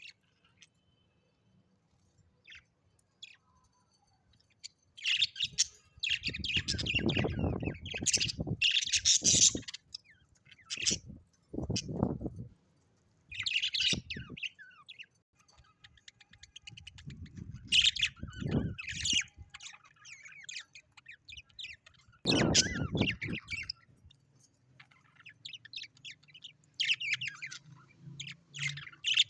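Small birds chirping and squawking in busy bursts after a few near-quiet seconds, with several louder noisy bursts that reach low down mixed in.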